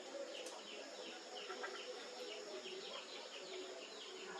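A small bird chirping over and over: short, high, falling chirps about three a second, with a steady high hiss behind them.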